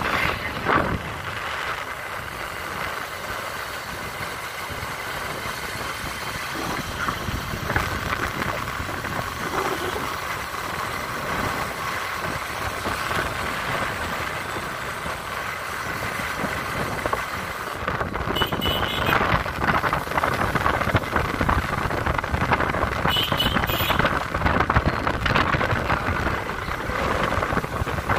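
Motorcycle engine running steadily while riding, with wind rushing over the microphone; the noise grows louder about two-thirds of the way through.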